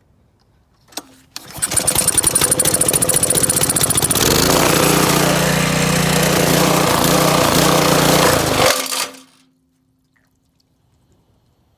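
Honda GC190 single-cylinder engine pull-started about a second in, running loud with rapid firing pulses, then a steadier, deeper note from about four seconds in. It stops abruptly near the end, hydrolocking on water poured into it.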